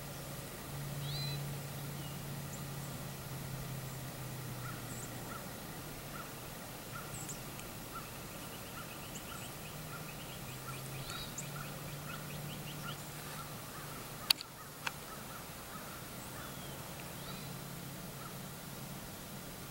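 Birds calling in the background: scattered high chirps and a run of short notes repeated about twice a second, over a steady low hum. About two-thirds of the way in come two sharp clicks close to the microphone, half a second apart.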